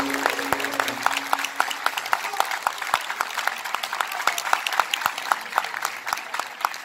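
Audience and choir applauding, a dense patter of many hands clapping. A held musical note of the song's ending fades out in the first couple of seconds.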